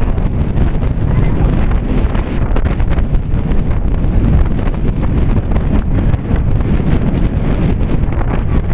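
Wind buffeting the camera microphone: a loud, steady low rumble with scattered faint crackles.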